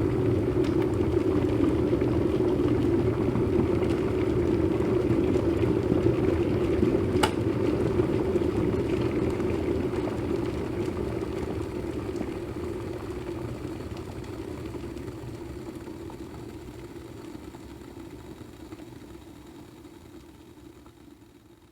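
Electric kettle boiling water with a steady rumble, a single sharp click about seven seconds in, after which the boiling gradually dies away.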